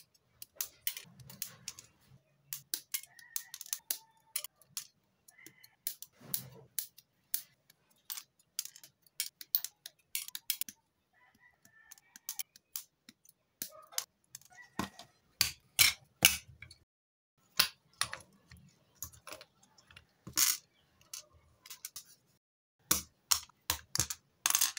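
Hobby side cutters snipping plastic model-kit parts off the sprue: a long run of sharp, irregular clicks, some coming in quick pairs.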